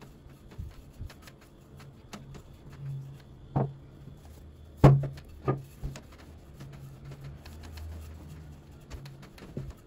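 Wooden rolling pin rolling soft yeast dough out on a wooden tabletop: a low, intermittent rumble with a few sharp wooden knocks, the loudest about five seconds in.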